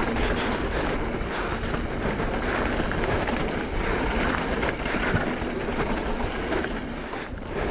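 Mountain bike riding fast down a dirt singletrack: a steady rush of tyres on dirt and wind, with the bike rattling over bumps.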